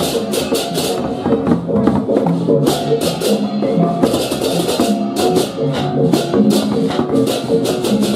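Balinese processional gamelan (baleganjur): hand cymbals clash in quick runs every second or two over a stepping melody on tuned gongs and metal keys.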